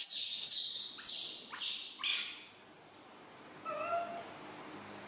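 Baby macaque crying: a quick run of about five short, high-pitched squealing cries in the first two seconds, then one softer cry near four seconds.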